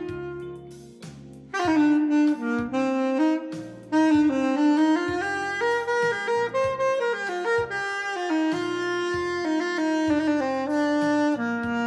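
Instrumental music: a sustained lead melody played over a backing track with a stepping bass line, dipping briefly about a second in before picking up again.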